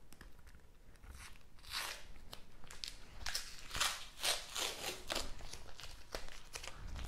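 Paper wrapping crinkling and tearing as it is pulled off a small clamp by hand: irregular crackly rustles that start about a second in and grow busier through the middle.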